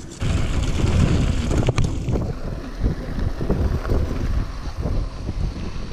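Wind buffeting the camera microphone as a mountain bike rolls fast down a dirt trail, a rough rumble from the tyres and trail with scattered knocks and rattles; it starts abruptly.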